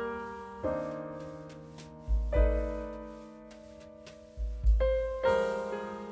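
Background piano music: slow chords, each struck and left to fade, with a deep bass note sounding under two of them.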